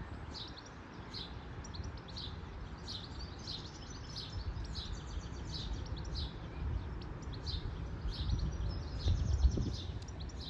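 Small birds chirping repeatedly, about two short high chirps a second, over a steady low rumble.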